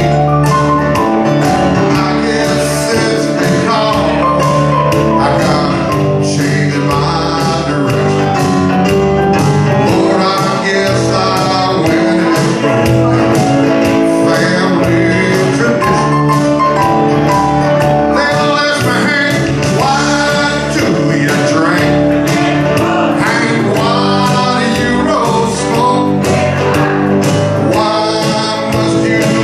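Live country band playing: a man singing over electric guitar and keyboard, with a steady beat.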